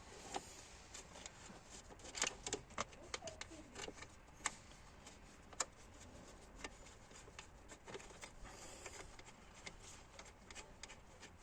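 Scattered faint clicks and light taps at irregular intervals over a low steady hiss.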